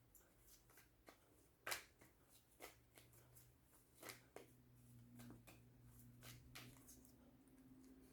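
Tarot cards being handled, drawn and laid down: faint, scattered clicks and flicks a second or so apart, over a faint low hum.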